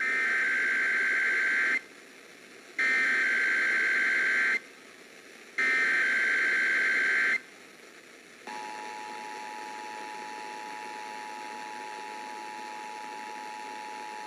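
Emergency Alert System SAME header: three short bursts of shrill digital data tones with short gaps between them, encoding a Required Monthly Test. About eight seconds in, the EAS two-tone attention signal (853 and 960 Hz) starts and holds steady.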